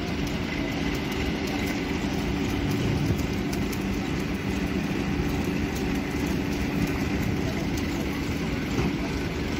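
A heavy engine running steadily, a constant low hum over noise with no change in pace.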